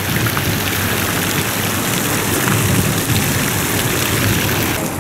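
Fountain water splashing into its basin: a steady, rain-like hiss that drops away suddenly near the end.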